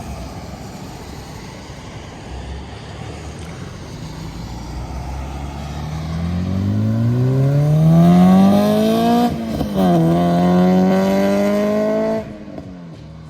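A 2006 Acura RSX Type S four-cylinder engine, running through a Skunk2 Alpha header and Invidia N1 exhaust, accelerating hard. After a steady low drone the pitch climbs for about four seconds, drops briefly at a gear change a little past halfway, climbs again, then cuts off suddenly near the end.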